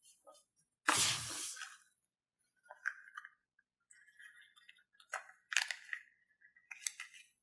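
Wet slime squishing as it is squeezed out of rubber balloons and handled, with one loud squelch about a second in, then scattered smaller squelches, crackles and squeaks.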